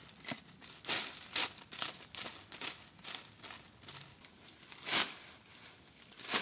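Rustling and crinkling of something being handled, in short irregular strokes, the loudest about a second in, near five seconds in, and at the very end.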